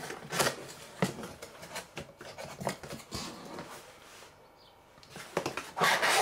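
Cardboard box being opened by hand: short scrapes, taps and knocks as the tear tab and lid are pulled up. Near the end, a louder, dense rustle of brown packing paper being handled.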